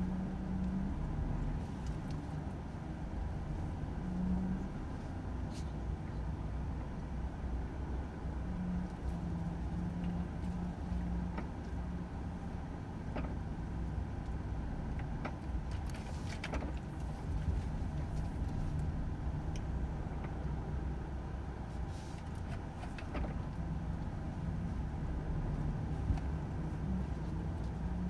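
Volvo FH 500 truck's straight-six diesel engine running steadily, heard from inside the cab, with a few scattered light clicks and knocks.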